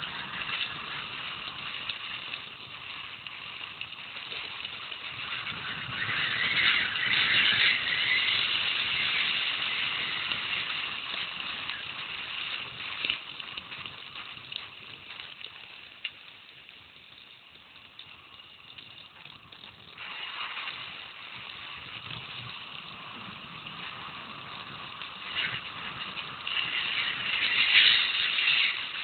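Mountain bike rolling fast downhill on a gravel road: a steady crunch and hiss of tyres on loose gravel, with the bike rattling over bumps. It grows louder about a quarter of the way in and again near the end, and eases off just past halfway.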